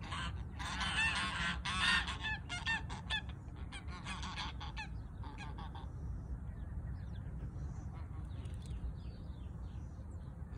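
A flock of white domestic geese honking, many calls overlapping in a burst during the first half, then thinning to scattered, fainter honks.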